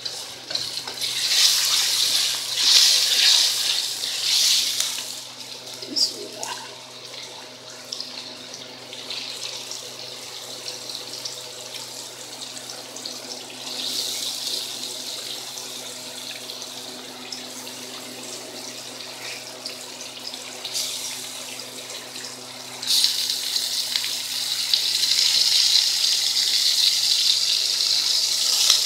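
Raw chicken pieces sizzling in hot oil and fried onions in a steel wok. The sizzle swells loud about a second in and again for the last six seconds as more pieces go in, with a steady low hum underneath.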